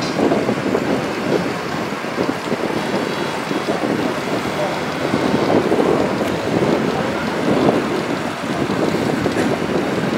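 Wind noise on the microphone: a steady, fluttering rush.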